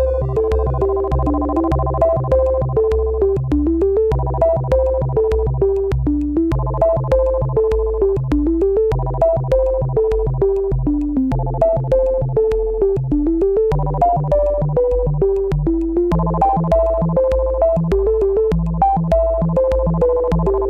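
Electronic synthesizer music: a stepping melody over held chords and a steady bass beat.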